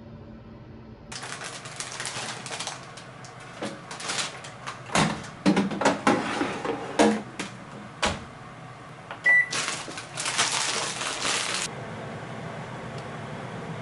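Kitchen work: a run of clicks, knocks and clatters of utensils and dishes, with one short electronic appliance beep about nine seconds in.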